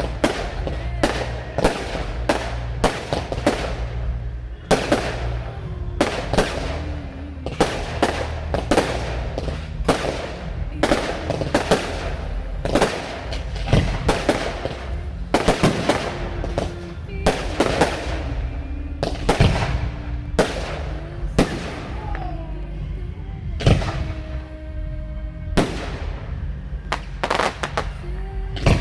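Fireworks bursting in a rapid, continuous barrage, several sharp bangs a second with echoing tails, over film music played through loudspeakers.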